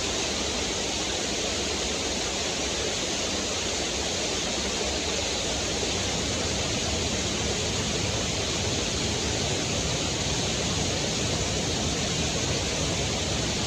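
Small waterfall pouring over rocks, a steady even rush of water.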